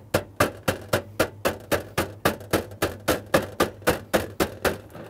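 Ball-peen hammer striking the lip of a thin copper sheet disc, turning the edge inward to form a bowl rim: a steady run of quick blows, about four a second, each with a short metallic ring.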